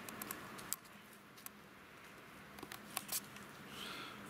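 A few faint, sharp clicks and ticks, scattered and irregular, over a quiet outdoor background hiss.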